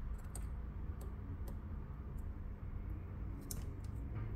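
Faint, scattered small clicks and ticks as a smartphone charging board is lifted out of the phone's frame and handled with the fingers, over a low steady hum.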